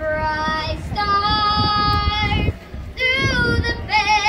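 A solo high voice singing a slow melody in long held notes, with a low crowd rumble underneath.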